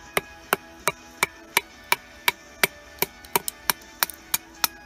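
Wooden baton striking the spine of a Nieto Chamán Bushcraft knife (Sandvik 14C28N steel blade), driving it lengthwise down through a piece of wood: sharp knocks in a steady rhythm, about three a second.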